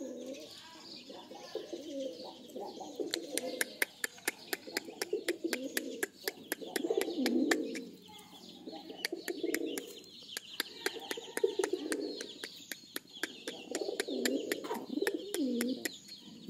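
Pigeons cooing over and over in low, warbling phrases, with a dense run of sharp taps and clicks throughout and faint higher chirping.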